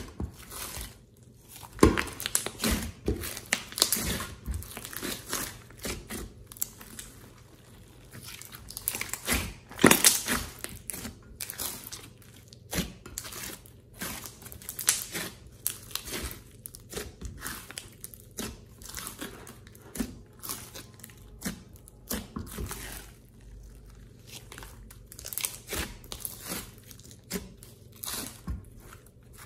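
Large multicoloured slime being squeezed, stretched and folded by hand in a glass dish, giving sticky, irregular crackles and pops, loudest about 2 and 10 seconds in.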